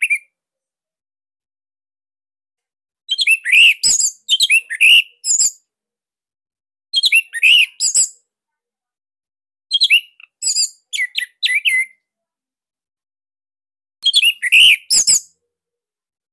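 Orange-headed thrush (anis merah) singing loud phrases of rapid, sharp, sliding notes. It sings four bursts of about a second to a second and a half each, with pauses of a few seconds between them.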